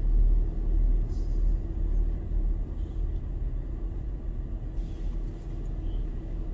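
Steady low rumble of a car's engine and running noise, heard from inside the cabin.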